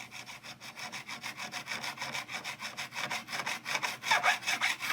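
A metal file scraping back and forth on a guitar fret in quick, even strokes, working pitting out of the worn fret.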